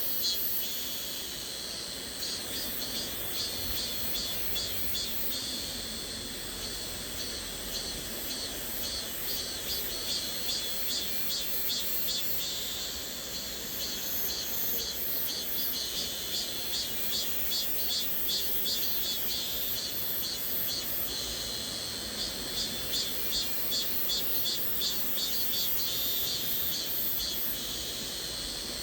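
Cicadas singing in a high, dense buzz that swells in regular pulses about one and a half times a second, over the steady hiss of a flowing stream.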